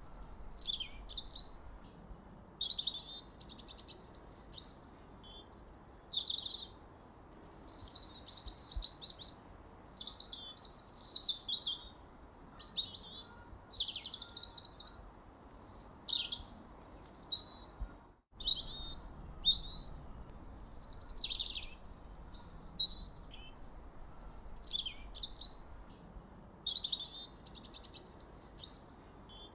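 Songbirds singing, a continuous string of short, high chirping and warbling phrases over a faint background hiss, with a momentary break about eighteen seconds in.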